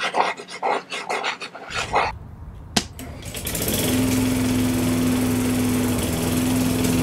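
Rapid rhythmic panting for about the first two seconds, a sharp click, then a small lawn mower engine starts and runs steadily at a constant speed.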